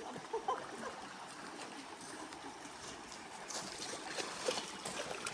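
A shallow river flowing over rocks: a steady rush of water that grows a little brighter about three and a half seconds in.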